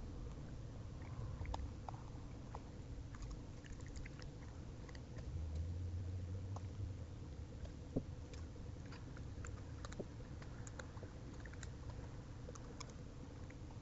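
Raccoon chewing and crunching birdseed, heard as many small irregular clicks and crunches, with one sharper knock about eight seconds in.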